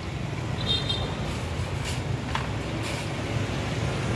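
Steady rumble of street traffic, with a few light clinks and clicks from the vendor's utensils about one to three seconds in.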